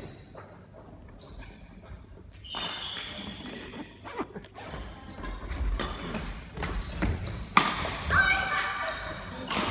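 A badminton rally on a wooden court: rackets striking the shuttlecock with sharp smacks, the loudest about three-quarters of the way through, along with players' shoes squeaking and feet thudding on the floor, echoing in the hall.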